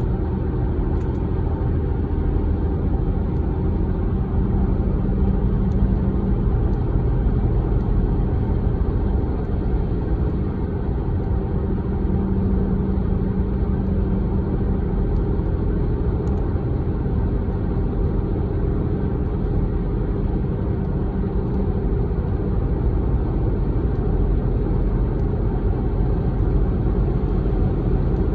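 Steady vehicle rumble from a 2014 Dodge Durango, with faint, short, high-pitched chirps coming at irregular intervals from the driver's side rear.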